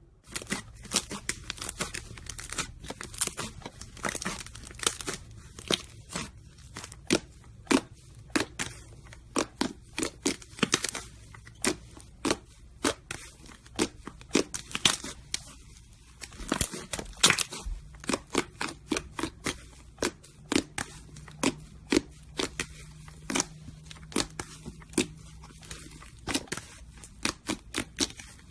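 Slime being squeezed and stretched by hand, giving a steady stream of sharp, irregular crackling clicks and pops, several a second.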